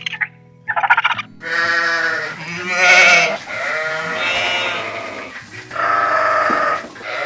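Farm animal bleating in several long, wavering calls, after a short gobbling burst about a second in, with background music under it.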